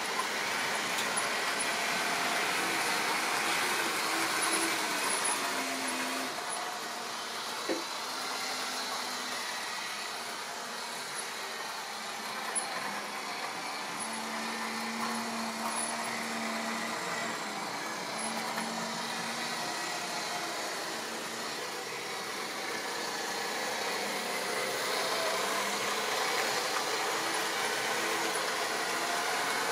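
Model railway locomotive, a BR blue Class 50 diesel model, running round the layout with its coaches: a steady whir of the small electric motor and wheels rolling on the track. There is a sharp click about seven and a half seconds in.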